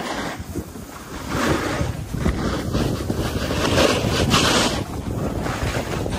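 Skis sliding and scraping over packed snow at speed, with wind buffeting the microphone as a steady low rumble. The scraping hiss swells a little after a second in and again around four seconds in.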